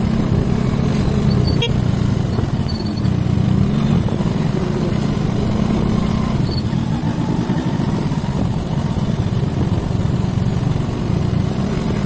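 Motor scooter riding along at a steady speed, its engine and the road noise running evenly throughout.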